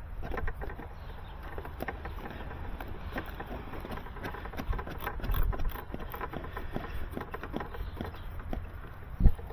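Handling noise from working a fiber drop cable by hand: scattered small clicks and rustling over a steady low rumble, with one sharp knock near the end.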